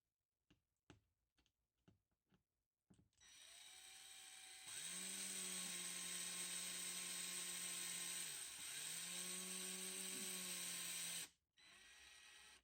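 LiftMaster 1/3 hp garage door opener motor starting up and running as a steady electric hum for about seven seconds. Its pitch sags briefly midway, and it cuts off abruptly near the end, after a few faint clicks at the start.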